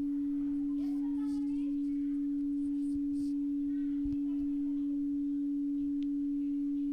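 Phone speaker playing a steady, unbroken low pure tone from a speaker dust-removal app's auto-cleaning mode, which uses the tone to shake dust and water out of the speaker grille.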